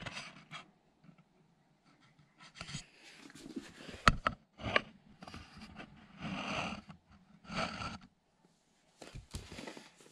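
Handling noise as a camera is moved and set down on a wooden floor: rustling and sharp knocks, the loudest about four seconds in, followed by several short scraping rustles.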